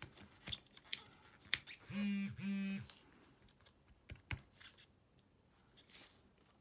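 Light taps and clicks, like fingers tapping on a phone's touchscreen, with two short, identical low buzzes back to back about two seconds in.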